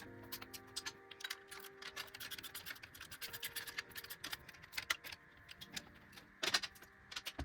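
Hand tools clicking in quick irregular runs, like a ratchet working bolts, over background music with held notes.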